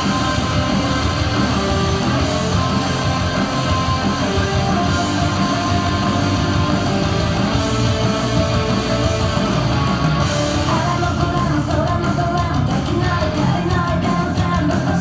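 Loud rock song with singing and guitar, running without a break.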